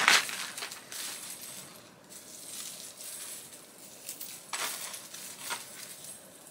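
Metal chains of a chain bra harness clinking and jingling as it is lifted out of a plastic zip bag and untangled by hand. A loud burst of handling noise comes right at the start, and a few sharper clinks come past the middle.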